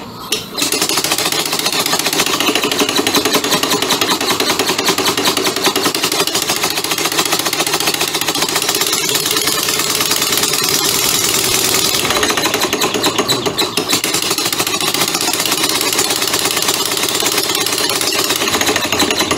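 Homemade two-cylinder compressed-air engine running on shop air, with a rapid, steady chatter of exhaust puffs over a loud hiss of escaping air. Both cylinders are working together now that a leather washer that had blocked one cylinder's intake hole has been removed.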